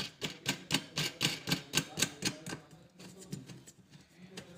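A run of quick, sharp clicks, about four a second, as the screw fixing the LED plate at the centre of the chandelier's metal frame is turned tight by hand. The clicks stop a little past halfway.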